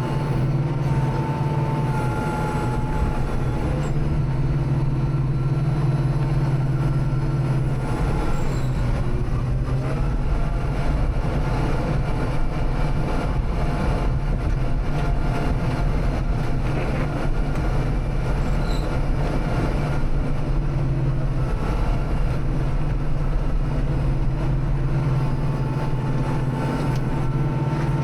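Kubota tractor's diesel engine running steadily at a constant speed, with a faint whine that comes and goes.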